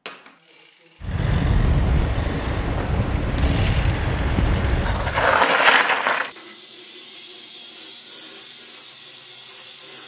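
Bicycle pedal and drivetrain turning, a loud rumbling mechanical sound with ratcheting, starting about a second in. A brief brighter burst near six seconds drops into a quieter steady hiss.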